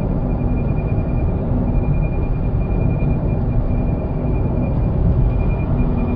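Toyota Auris making a weird sound: a thin high tone that fades in and out repeatedly over a steady low noise.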